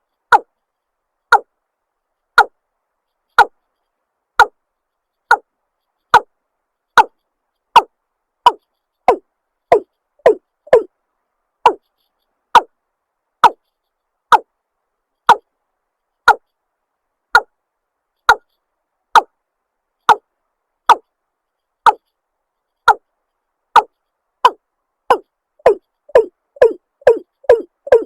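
Watercock (cúm núm) calling: a series of single hollow notes about one a second, each dropping in pitch, speeding up to a quick run of notes near the end.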